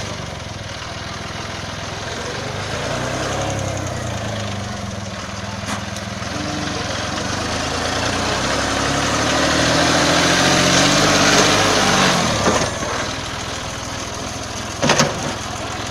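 A motor vehicle's engine running, its pitch rising and falling, louder about ten to twelve seconds in and then dropping away. A sharp knock comes near the end.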